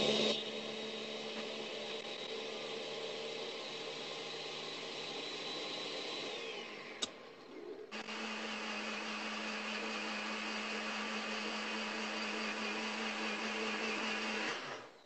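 Electric blender running steadily, blending crepe batter of eggs, cream cheese, cinnamon and sweetener. About six and a half seconds in its whine winds down, followed by a click and a short lull. A blender then starts again and runs steadily until it stops just before the end.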